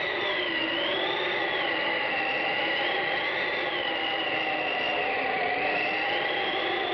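Steady rushing noise with a steady high tone and slowly wavering whistling tones that rise and fall in pitch every second or two: an eerie, wind-like recorded sound effect.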